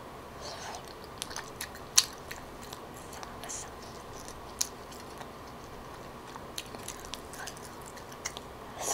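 Close-up mouth sounds of someone eating a small boiled egg and chewy rice cakes: wet chewing with scattered sharp smacks and clicks, the loudest about two seconds in.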